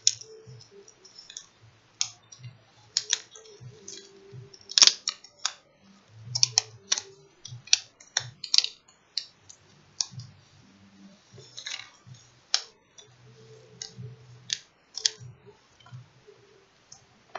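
Hands working a laptop's LCD panel loose at its top edge: irregular sharp clicks and crackles of plastic and tape, with soft low bumps between them.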